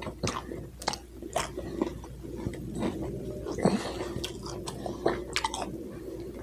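A man chewing a mouthful of food: wet mouth clicks and smacks coming irregularly, several a second.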